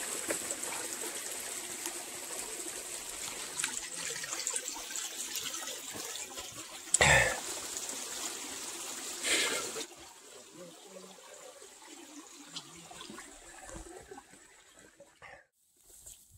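Running water trickling steadily, with two short louder sounds about seven and nine seconds in; after about ten seconds it drops suddenly to a fainter hush.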